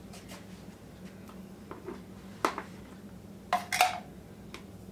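Spoon scraping out a tin can of condensed soup and clinking against the can and the mixing bowl: a sharp clink about two and a half seconds in and a quick cluster of knocks near the end.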